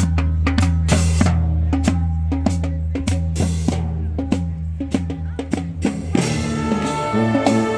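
Street brass band playing: drums keep a steady beat over a low held bass line, and horns come in with held notes about six seconds in.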